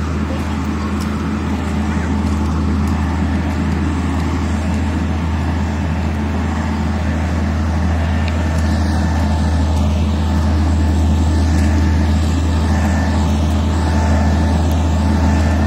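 An engine running steadily, with a constant low drone and noise over it.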